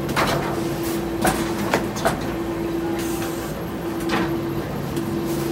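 Industrial laundry folding machine running with a steady hum as linen is fed through its conveyor belts, with several sharp clicks and knocks in the first two seconds and a brief hiss about three seconds in.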